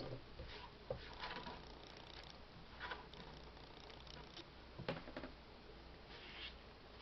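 Faint, scattered soft taps and rustles of sliced onion being handled on a plastic cutting board and dropped into a wok, a few light knocks a second or two apart.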